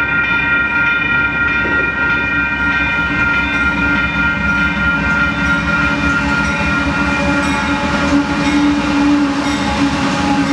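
Union Pacific auto train (freight train of autorack cars) passing, with a continuous rumble and wheel clatter. A locomotive horn chord sounds and fades out about three to four seconds in.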